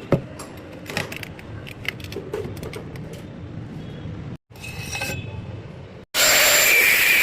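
Steel pipe and tools handled, giving light metallic clinks and taps. About six seconds in, a power tool starts on the metal with a loud steady hiss and a high whine.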